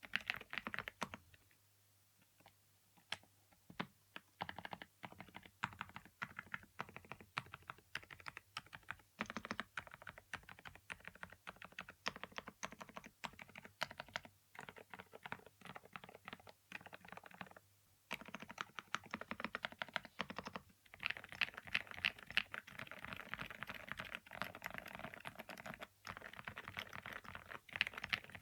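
Typing on a SMACKAPE Impact 80 Pro mechanical keyboard fitted with Keychron Silent K Pro silent switches: a stream of key presses, with a short pause about two seconds in and a faster, denser run of keystrokes near the end.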